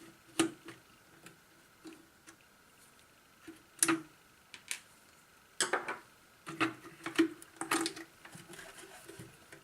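Screwdriver and small parts being handled while a screw is worked out of the light's housing: irregular sharp clicks and light knocks, bunched in a few clusters.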